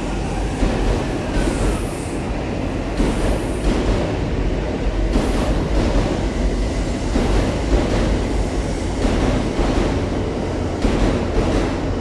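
JR E257 series electric multiple unit pulling out of the platform and rolling past at low speed. It gives a steady rumble, with its wheels clacking over the rail joints more and more often in the second half.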